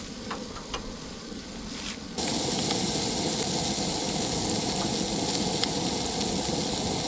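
Catfish fillets sizzling in butter in a frying pan on a Coleman camp stove, a steady hiss with a few small pops early on. The sizzle jumps suddenly louder about two seconds in and starts to fade near the end.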